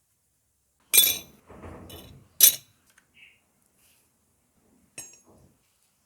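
Small metal lock parts clinking against a hard surface: two sharp metallic clinks with a light rattle between them, then a fainter click near the end.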